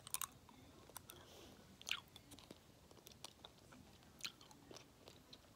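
Near silence with a few faint, scattered clicks close to the microphone, a second or so apart at irregular times.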